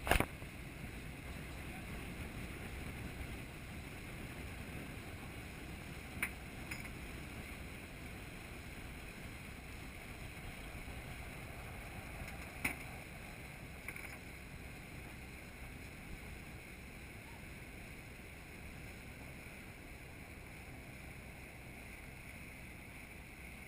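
Sailboat under way: a steady rush of water along the hull and wake, with a couple of sharp clicks about six and thirteen seconds in.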